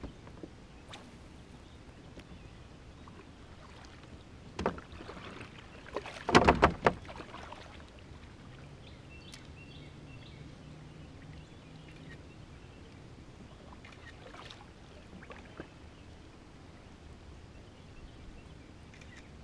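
Knocks and clatter of gear against a plastic fishing kayak's hull: a few single knocks, then a loud quick cluster about six to seven seconds in. A faint low hum runs from about nine to twelve seconds.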